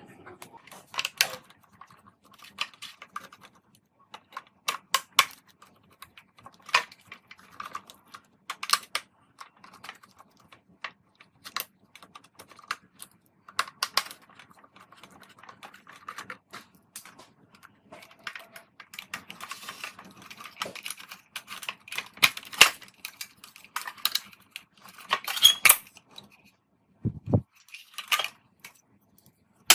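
Irregular light clicks and clacks of small hard parts being handled, with one dull low knock near the end.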